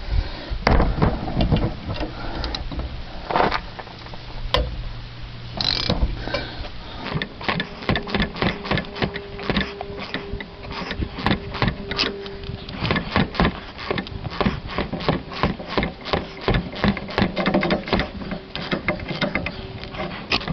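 Hand ratchet clicking quickly, about four clicks a second, as it turns a nut on a truck's sway bar link. A few separate knocks come in the first several seconds.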